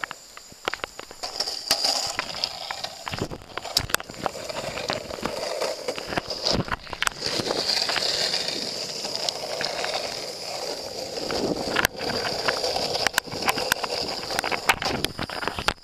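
Longboard wheels rolling along pavement: a steady rolling noise broken by frequent sharp clicks and knocks.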